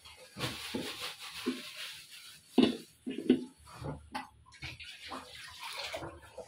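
Water splashing in a wide steel pan of fish curry as a hand moves it about, just after water is poured in from a jug. Two sharp knocks of cookware come about two and a half and three seconds in.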